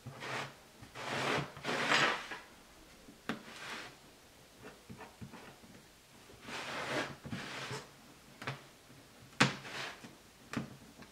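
Lino cutter with a small gouge blade scraping through a lino sheet, carving small circles: an irregular series of short scratchy cuts, some nearly a second long, with a few sharp clicks in between.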